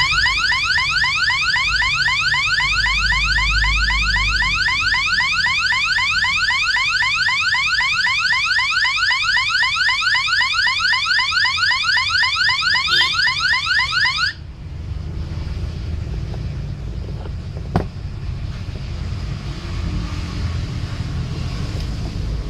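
A siren-like electronic tone from an AT89S52 microcontroller, amplified through an L298N driver. It repeats a quick rising sweep several times a second, then cuts off suddenly about fourteen seconds in. A low hum remains after it, with a single click a few seconds later.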